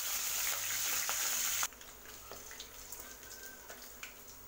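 Oil sizzling as green chillies and curry leaves fry in an aluminium kadai, stirred with a wooden spatula. The sizzle cuts off suddenly about one and a half seconds in, leaving a quiet background with faint ticks.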